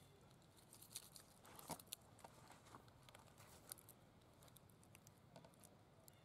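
Faint rustling and crackling of dry fallen leaves as monkeys shift on them, with a few soft clicks; the loudest crackles come between one and two seconds in.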